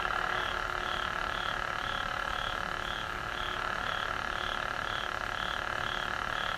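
Lit lightsaber's sound board playing its idle hum through the hilt's small speaker: a steady hum with a regular pulsing warble about twice a second.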